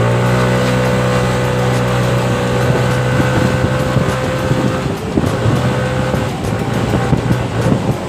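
Yamaha NMAX scooter's single-cylinder engine running under throttle while riding. Its pitch holds steady, drops briefly about five seconds in, picks up again, then fades somewhat near the end.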